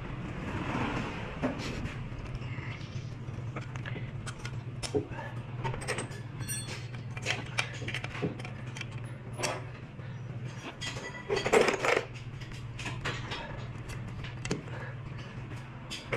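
Metal engine parts being handled, clicking and clinking irregularly, with a louder cluster of knocks near the end, over a steady low hum.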